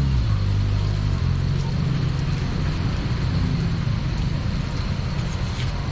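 Skewered snacks deep-frying in a wok of hot oil, a steady sizzling hiss, over a steady low rumble.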